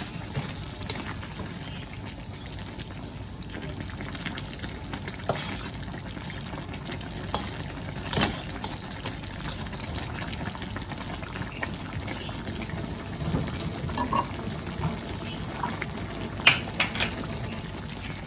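Cassava leaves in broth simmering in a wok, a steady bubbling hiss, with a spatula stirring and scraping the wok now and then. A few sharp clacks of the spatula against the wok come near the end.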